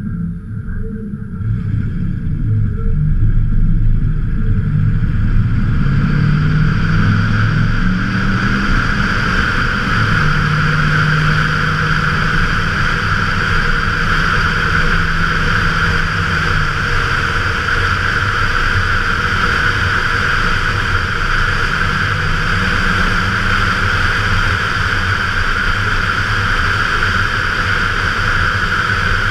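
1995 Ford F-150's 5.0 L (302) V8 exhaust, with a Magnaflow Y-pipe, an electric QTP cutout and a Cherry Bomb Extreme muffler, pulling away from a stop about two seconds in and then running steadily at cruising speed. A steady rush of wind noise builds as the truck picks up speed.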